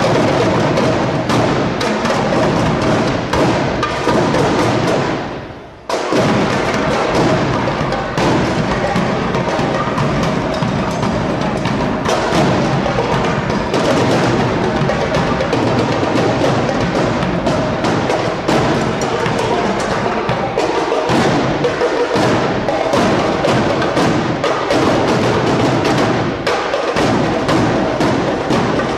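A drum squad of snare and bass drums playing a fast, loud cadence. The sound drops away briefly about five seconds in, then comes back at full strength.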